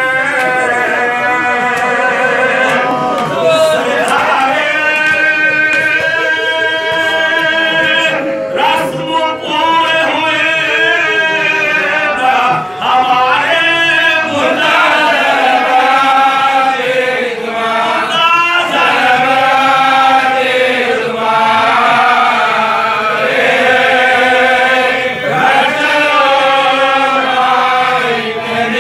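Male voices chanting a marsiya, an Urdu elegy for the martyrs of Karbala, sung unaccompanied in long, drawn-out melodic lines through a microphone.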